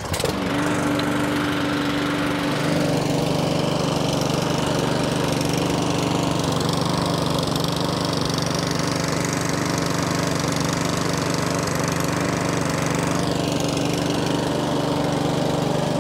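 McCulloch M40-120 Classic lawnmower's four-stroke petrol engine running at a steady speed, settling into an even note a couple of seconds in. It is running cleanly again after repair.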